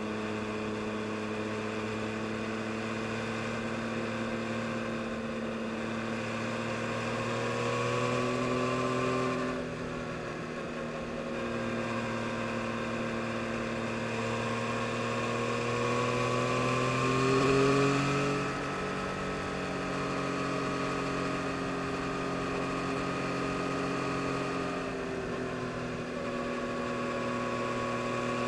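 Yamaha MT-09 SP's 890 cc inline three-cylinder engine running at steady cruising revs under way. The revs dip sharply about a third of the way through, climb to a brief peak a little past the middle, then drop back and settle.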